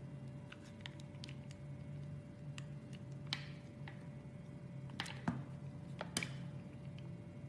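Knife blade cutting into a bar of soap: scattered small crisp cracks and scrapes, with louder cracks about three seconds in and again between five and six seconds in.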